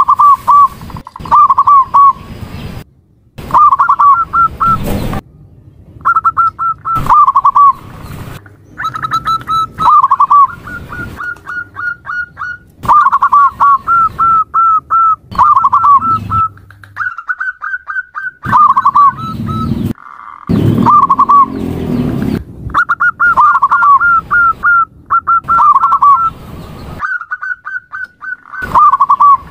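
Zebra dove (perkutut) calling, labelled as a female's call: phrase after phrase of quick, high staccato coo notes, each run ending in a couple of lower, drawn-out coos, with short breaks between phrases. Several phrases break off abruptly, as in an edited recording.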